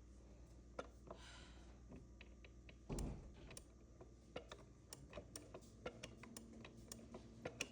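Faint, irregular light clicks and taps, with one louder knock about three seconds in.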